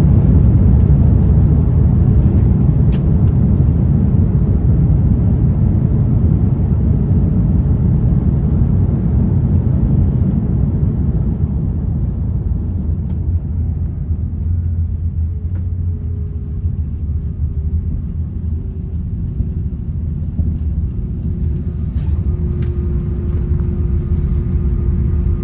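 Airliner cabin rumble just after touchdown: a loud low rumble that slowly fades over the first two-thirds as the plane slows, leaving a steadier hum with a faint steady whine near the end.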